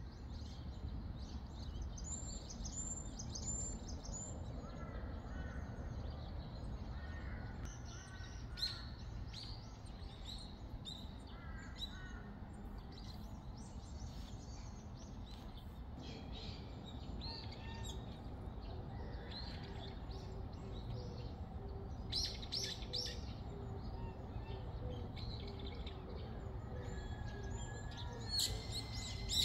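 Several small birds chirping and singing in short calls and quick runs of notes. Beneath them is a steady low hum of outdoor background noise.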